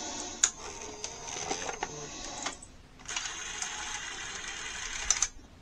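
NEC SuperBeta HiFi VCR's tape loading mechanism running through its threading cycle: a steady whirr of the loading motor and gears with a few sharp clicks. It stops briefly about halfway, then runs again and ends in clicks near the end.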